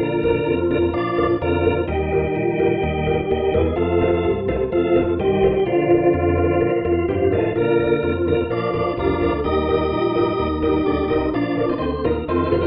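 Background music: organ chords held and changed every second or so over a pulsing bass.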